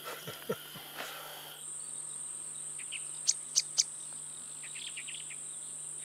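Evening insect chorus: a steady, high-pitched insect trill with a few short bird chirps in the middle. For the first second and a half a different insect hiss is heard, with a couple of soft knocks, before the sound changes abruptly.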